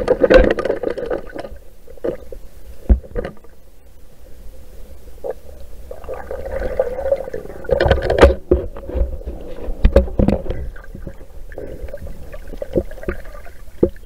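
Muffled underwater sound through a waterproof camera housing: water moving and bubbling over a steady low rumble, with scattered sharp knocks and clicks. It swells in a burst of bubbling at the start and again about six to eight seconds in, with the loudest knocks around eight and ten seconds in.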